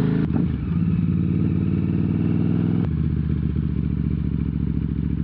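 KTM 950 Super Enduro's V-twin engine, fitted with Akrapovič exhausts, running, broken by two sharp clicks where the sound jumps. After the second click, about three seconds in, it idles steadily.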